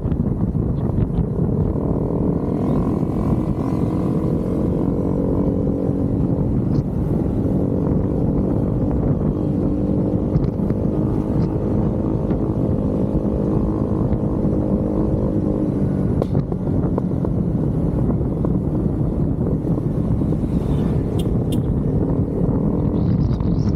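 Motorcycle riding along at a steady speed: an even engine note that holds level over a low rumble, the engine tone growing fainter in the last third.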